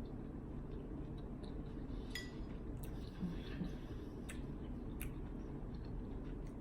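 A utensil clinks against a glass bowl several times as food is scooped. One clink, about two seconds in, rings briefly. A steady low hum runs underneath.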